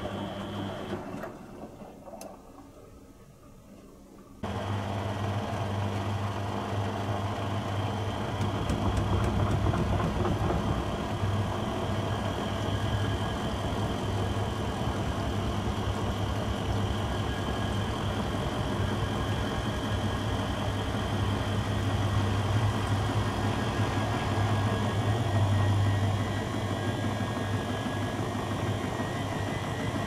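Beko WM74155LS washing machine moving from tumbling into a spin. After a brief lull a steady hum cuts in suddenly about four seconds in, and the brushed motor brings the drum up to speed as the water drains. The machine grows louder around eight to ten seconds in, then runs steadily.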